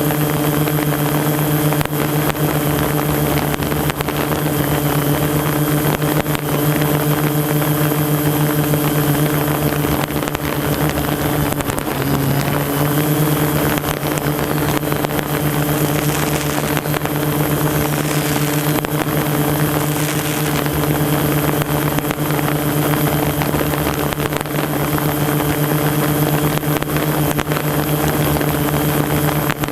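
Drone propellers and motors humming steadily, with a brief dip and shift in pitch about twelve seconds in.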